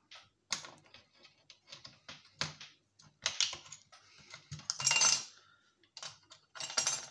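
Hands handling a salvaged electronics circuit board and scrap parts: scattered light clicks and taps of plastic and thin metal, with a louder scrape about five seconds in.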